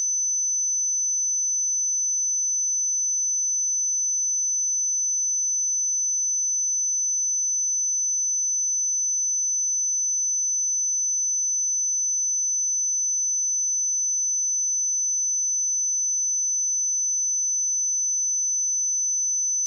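A steady, high-pitched pure sine-wave test tone at 6056 Hz, held constant without any change in pitch or level.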